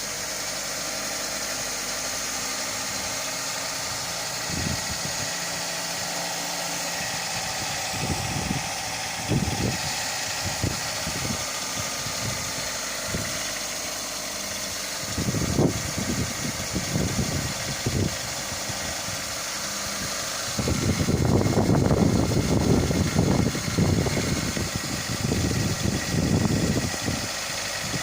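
Mitsubishi Lancer IX's 1.6-litre four-cylinder engine idling steadily just after a cold start, still warming up, with a slight shake at idle and no knocking heard yet. Irregular low rumbles come and go over the hum, the longest and loudest a little over two thirds of the way through.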